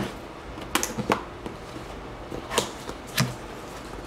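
Cardboard product box being opened by hand: a few short scrapes and taps as the lid flap is pulled up, four in all.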